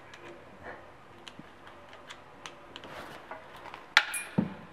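Light rubbing and small ticks of a rag wiping swarf out of a freshly drilled bolt hole in a motorcycle crankcase, then a sharp metallic click with a brief high ring about four seconds in.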